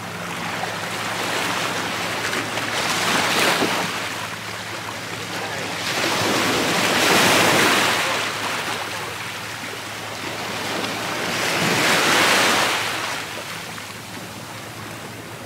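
Small waves washing in over jetty rocks, the rush of surf swelling and falling back three times.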